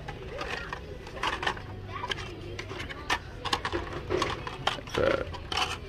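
Busy shop ambience: indistinct voices of other shoppers over a steady low hum, with scattered light clicks and clacks throughout.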